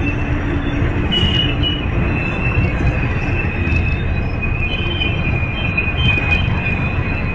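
Amtrak Superliner bilevel passenger cars rolling slowly past, a steady low rumble of wheels on rail, with thin high-pitched wheel squeal that comes and goes.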